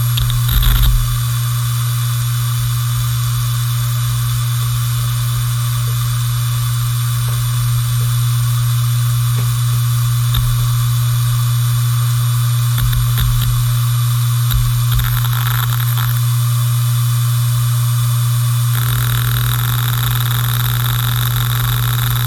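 Hard disk drive running: a steady spindle-motor hum with a faint high whine, broken by scattered short clicks of the read/write heads. About nineteen seconds in, a hissy whir joins it.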